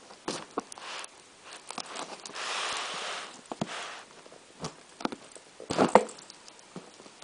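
Hands opening a cardboard parcel: scattered clicks and knocks, a rasping noise about a second long some two and a half seconds in, and a louder clatter of knocks about six seconds in.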